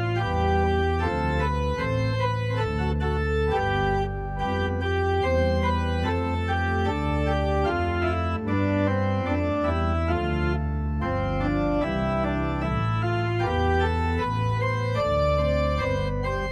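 Organ playing a hymn setting as the postlude: held chords over a bass line that moves step by step, with brief breaths between phrases.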